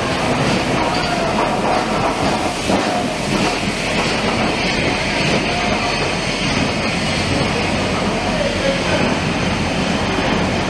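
LMS Coronation-class Pacific steam locomotive 6233 Duchess of Sutherland running past along a station platform with its train, steam hissing from around its cylinders and wheels clacking over the rail joints.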